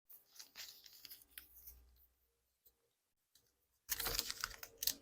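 Rustling and crinkling of trading cards and their packaging being handled: scattered faint crackles for a couple of seconds, a pause, then a louder, denser stretch of crinkling near the end.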